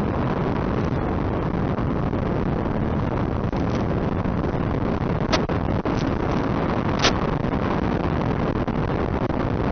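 RC P-38 model plane in flight: a steady rush of air and motor noise picked up by its onboard microphone, with sharp clicks about five and seven seconds in.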